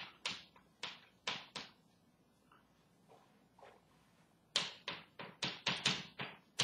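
Chalk writing on a blackboard: a run of sharp taps and short scratches as letters are written, a lull of about three seconds, then a quicker run of strokes.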